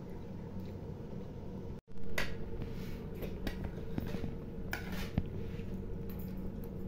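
A spoon clinking and scraping against a plate of rice several times, over a steady low hum. The sound cuts out for an instant just before two seconds in.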